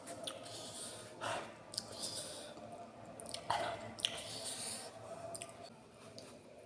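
A person eating spicy noodles close to the microphone: wet chewing and mouth noises with scattered small clicks, and a couple of short louder mouth sounds about a second and three and a half seconds in.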